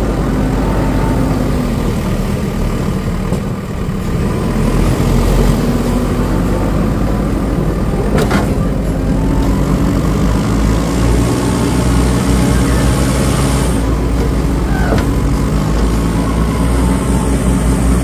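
JCB 3DX backhoe loader's diesel engine running steadily while the machine works through soft mud. There is a brief dip in loudness about four seconds in and a single sharp click about eight seconds in.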